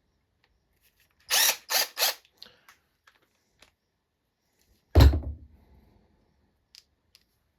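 Hercules 12-volt 1/4-inch cordless impact wrench run in three short trigger bursts about a second in. About five seconds in there is one heavy, deep thump.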